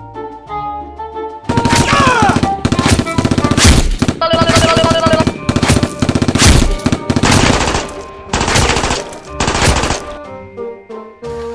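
Rapid machine-gun fire sound effect in several long bursts of shots, starting about a second and a half in. Background music plays before the shooting and comes back near the end.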